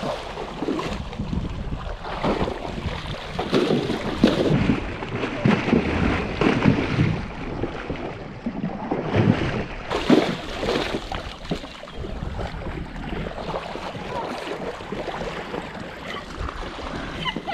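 A pony wading through shallow lake water, its legs splashing and churning the water in irregular surges, with wind buffeting the microphone.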